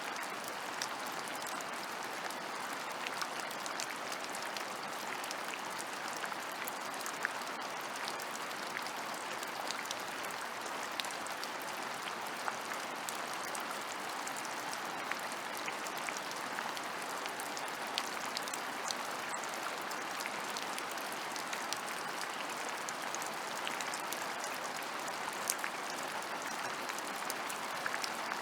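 Steady rain falling on open ground, an even hiss with scattered sharper ticks of individual drops.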